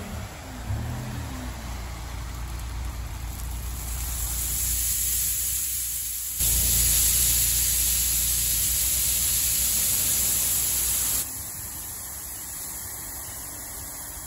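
A site dumper's engine running under a low hiss, then a loud rushing hiss of lightweight expanded clay aggregate pellets pouring out of the dumper's tipping skip. The rush holds for about five seconds and cuts off suddenly about eleven seconds in.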